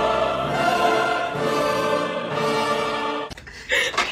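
Background music with held choir-like voices, which cuts off about three seconds in; a brief loud noise follows near the end.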